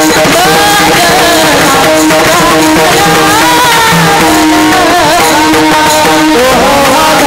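Marathi kirtan music: a devotional melody sung with gliding, ornamented pitch over held instrumental tones and hand-drum accompaniment.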